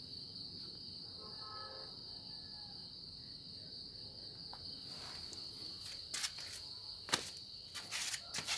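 A steady high-pitched insect trill, cricket-like, under quiet room tone. From about six seconds in come a few sharp clicks and knocks.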